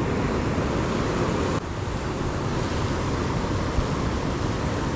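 Steady wash of surf over a rocky shore, mixed with wind noise on the microphone; the level drops slightly about one and a half seconds in.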